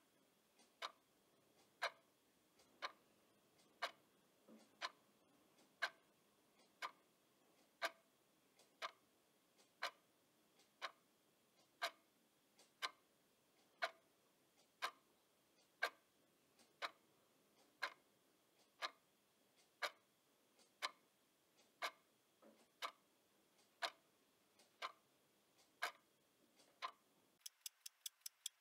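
Clock ticking steadily, about once a second. Near the end the ticks suddenly quicken to about five a second.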